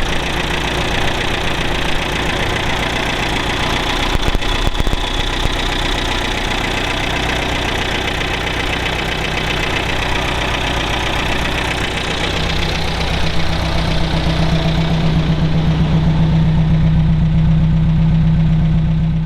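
Supercharged MG inline four-cylinder engine running steadily at idle. In the last few seconds its low hum grows a little louder while the higher hiss fades.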